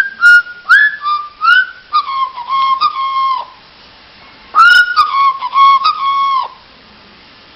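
Parrot whistling a short tune of pitched notes, several sliding down and then held. It plays one phrase, pauses about a second, and whistles a similar phrase again.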